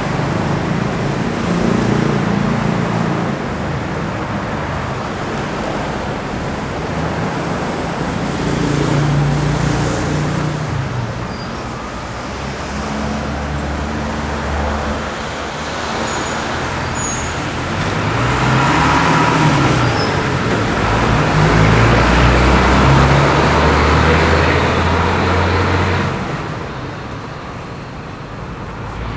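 Road traffic going by: a steady rumble of motor vehicles with engine notes rising and falling. It builds to its loudest in the last third, then drops off sharply near the end.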